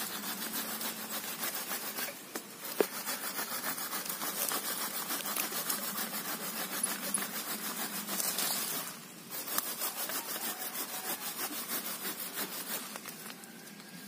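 A hand tool rasping into woody serut stems or roots in quick, even back-and-forth strokes, with two short breaks.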